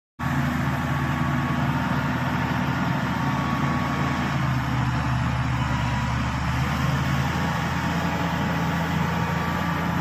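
Diesel engine of a Shantui SD16 crawler bulldozer running steadily as the dozer drives forward, pushing soil with its blade.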